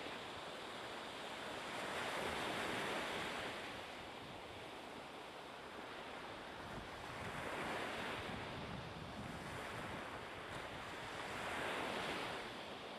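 Choppy sea and wind: a steady rushing of waves that swells and eases, loudest about two, eight and twelve seconds in.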